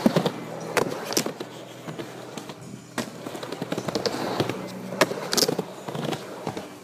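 Skateboard wheels rolling on a wooden halfpipe ramp, with several sharp clacks of the board and trucks hitting the wood.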